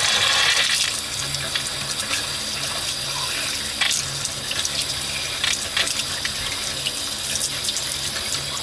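Water running from a tap into a sink as cleaned clock parts are rinsed, with a few light clicks and knocks of the parts. The flow is a little louder for about the first second.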